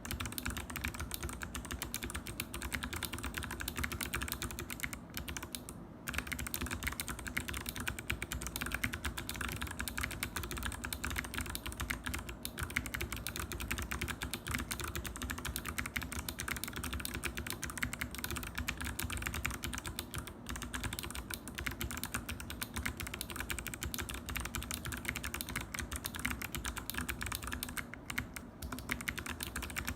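Fast, continuous typing on an NJ68 mechanical keyboard fitted with lubed Kailh Box Jade clicky switches, each keystroke giving a crisp click, with a few brief pauses.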